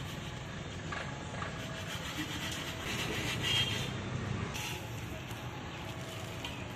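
Popped popcorn being scraped and turned around a large iron wok with a flat wooden scraper: an irregular dry scraping and rustling, louder in a few strokes. A steady low rumble runs underneath.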